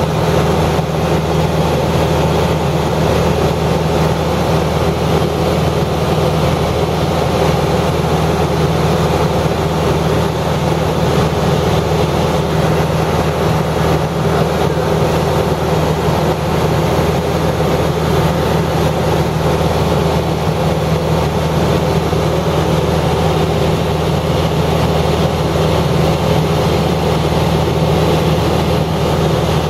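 A steady mechanical hum with a low drone, unchanging throughout.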